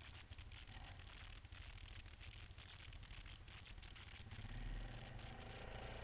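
Quad bike engine heard as a faint, muffled low rumble through an onboard camera, with many small clicks and knocks from the rough track. The rumble swells briefly about four and a half seconds in.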